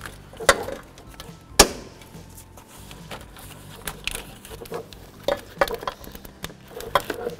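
Plastic wiring-harness clips and corrugated wire loom being worked loose by hand from a radiator support: scattered clicks and rattles, the sharpest snap about one and a half seconds in.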